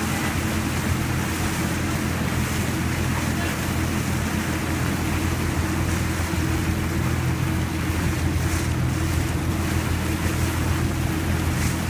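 Motorboat engine running steadily at towing speed, with the rush of wake water and wind buffeting the microphone.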